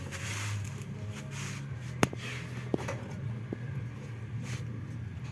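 A steady low hum with a few sharp clicks, the loudest about two seconds in, and brief bursts of rustling, as of hands handling parts or tools.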